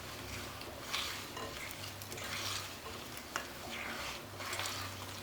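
Butter and icing sugar being creamed together in a mixing bowl: repeated scraping, stirring strokes against the bowl, swelling about every second and a half.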